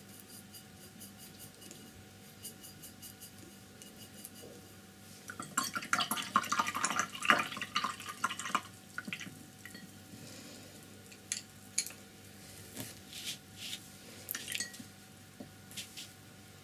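A paintbrush is rinsed in a glass jar of water, rattling and clinking against the glass for a few seconds about halfway in. A few single taps follow.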